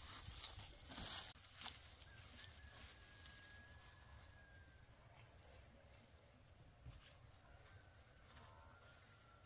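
Near silence: faint outdoor ambience with a few brief rustles in the first second or so, and a faint thin whistling tone held for a few seconds, then again near the end.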